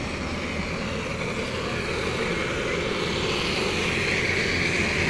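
Gas blowtorch hissing steadily as it heats a headlight housing to soften the sealant that holds the lens on.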